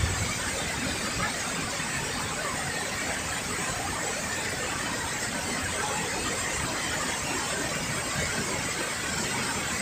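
Steady rushing of a rain-swollen river running fast over rocks at its falls, an even hiss of fast water.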